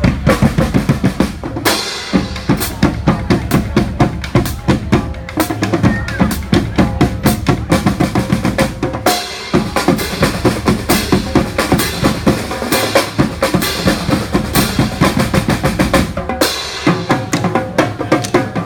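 Street marching band's drums playing a fast, driving beat of bass drum and snare, with the pattern shifting about every seven seconds.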